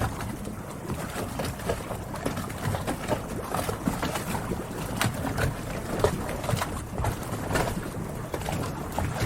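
Harbor ambience: a steady wash of water noise with many short knocks and clicks and occasional brief bird calls.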